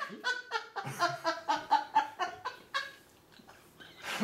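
Hearty laughter in rapid high-pitched pulses, about five a second, tailing off about three seconds in.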